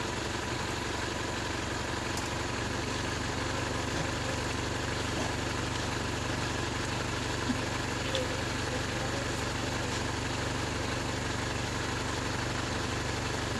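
An engine idling with a steady, even drone. There are a couple of faint knocks a little after the middle.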